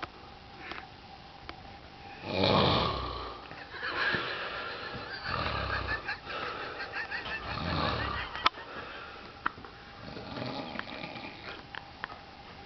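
Heavy, rattling snoring: four or five long snores about every two and a half seconds, the first the loudest, with a sharp click about eight and a half seconds in.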